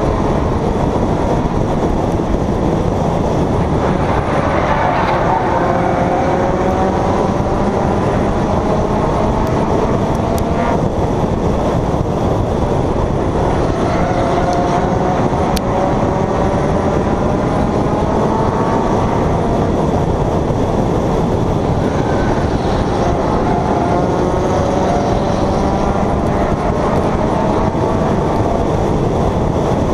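Stock race car's engine heard on board, its pitch climbing three times as it accelerates, over a steady dense rumble of road and wind noise.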